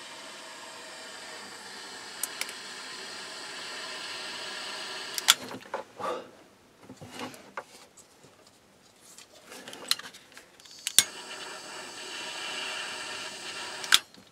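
Butane soldering torch burning with a steady hiss as wire is soldered. The hiss stops about five seconds in, leaving faint handling of wires, then starts again with a sharp click about eleven seconds in and runs until another click near the end.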